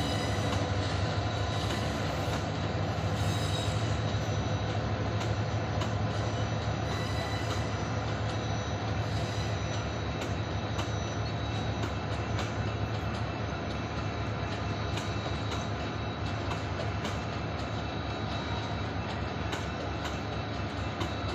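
Diesel-hauled passenger train rolling slowly past: a steady low engine hum under the rumble of the coaches, with wheels clicking over rail joints and thin, steady high tones from the wheels. It gets gradually a little quieter as the locomotive moves away.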